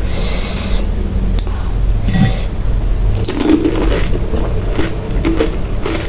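Close-miked eating: pani puri being bitten and chewed, with wet squishing and crunching sounds and a few small clicks.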